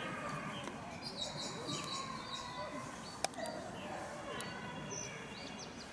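Birds chirping in the background, with one sharp click a little after three seconds in.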